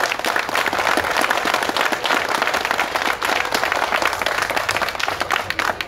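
Audience applause: many people clapping, dense and steady throughout.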